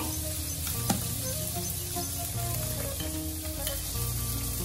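Soft background music with a steady hiss underneath and a single click about a second in.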